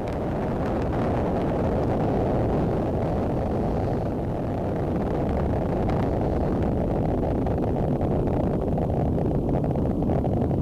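Falcon 9 first stage's nine Merlin 1D engines during ascent, a deep, steady rumbling exhaust noise.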